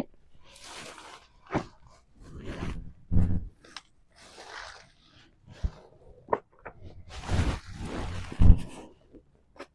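Irregular crunching and scraping handling sounds with sharp clicks and a few heavy thuds, the loudest thud near the end.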